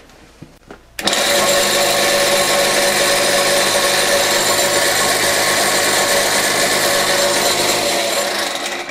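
Cordless drill spinning a hook-and-loop sanding disc pressed against a pen blank turning on a wood lathe: a steady motor whine with the rasp of sandpaper on wood. It starts suddenly about a second in and stops near the end. The pad is held in one spot long enough to sand a concave dip into the thin blank.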